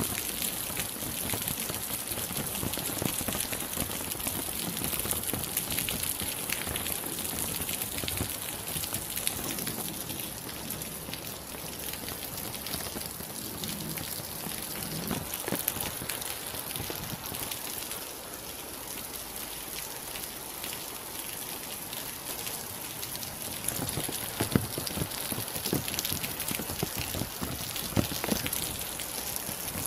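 Steady rain falling, an even hiss made up of many single drops striking a surface; a few louder drips stand out near the end.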